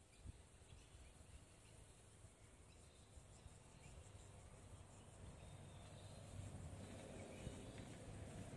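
Near silence: faint outdoor ambience with a steady high insect hum, a few faint bird calls and a low rumble.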